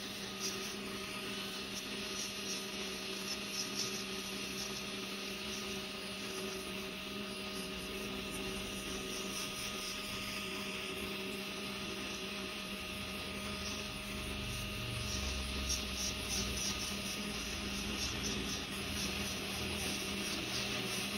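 Steady electrical hum with a light hiss behind it.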